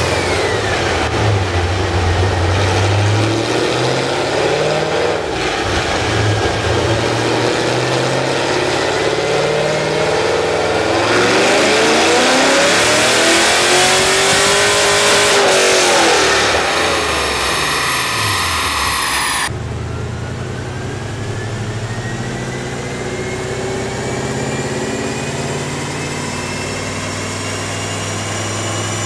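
Corvette V8 swapped into a G2X roadster running on a chassis dynamometer, its exhaust note and the dyno roller noise rising and falling as the engine is revved, with one loud climb and fall in the middle. About two-thirds through it cuts abruptly to a Mercedes-AMG V8 sedan on the dyno, engine pitch climbing steadily under load.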